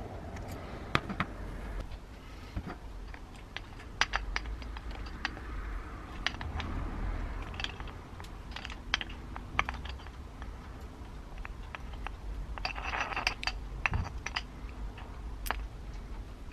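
Scattered light clicks and taps of metal parts being handled: an angle grinder's aluminium gear housing and a hand grease gun as grease is put into the gearbox, with a brief rough rustling noise about three-quarters of the way through over a steady low hum.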